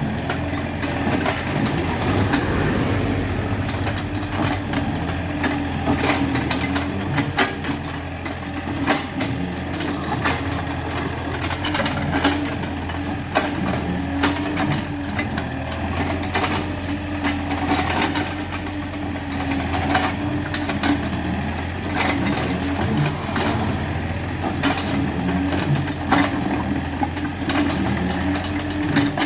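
Excavator's diesel engine running steadily, with frequent sharp knocks and clanks scattered throughout as the machine works.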